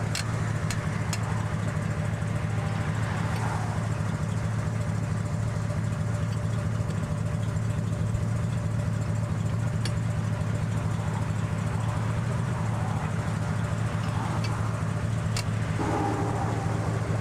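A motor vehicle engine idling, a steady low hum, with a few faint clicks over it.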